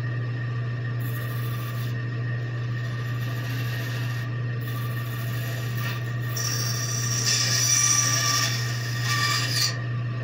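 Bandsaw blade cutting through a piece of wood in several short passes over a steady machine hum. The cutting grows loudest and takes on a shrill ring over the last few seconds, then stops shortly before the end.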